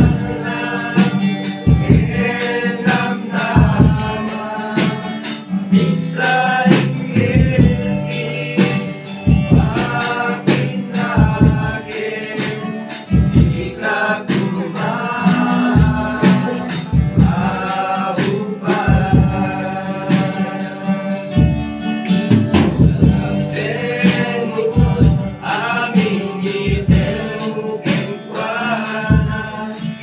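A group of young men and women singing a Christian worship song together, accompanied by steadily strummed acoustic guitar.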